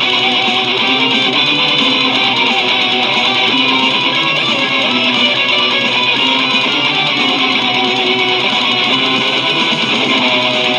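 Recorded metal music, a dense, steady wall of electric guitars and band playing continuously.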